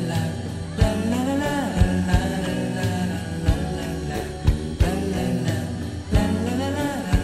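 Background song with guitar and a steady drum beat, and a singing voice gliding between notes in places.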